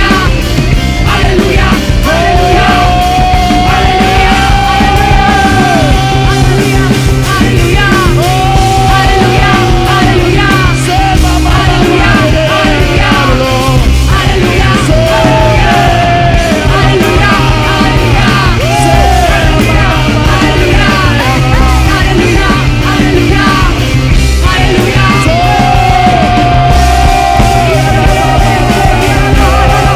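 Worship band playing loud rock-style music, with long held melody notes over a steady driving beat.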